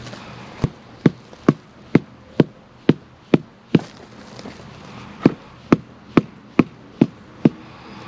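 A mallet tapping a thin stone veneer piece about twice a second to seat it into its mortar bed against the block: eight sharp knocks, a short pause just before the halfway point, then six more.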